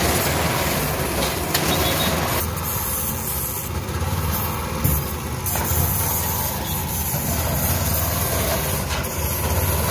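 Portable concrete mixer's small engine running steadily.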